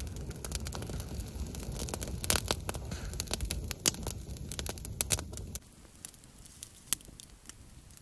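Small campfire of damp grass and twigs crackling, with sharp pops scattered throughout. Under it a low rumble stops suddenly about five and a half seconds in, after which the pops carry on more sparsely.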